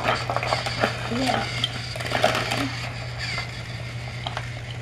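Plastic toy pieces clicking and knocking as children handle Lego Duplo blocks and toy trains, with a few short children's murmurs in the first half over a steady low hum.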